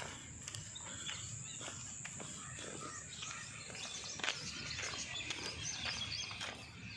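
Many birds chirping and calling over one another in quick short notes, over a steady high-pitched drone.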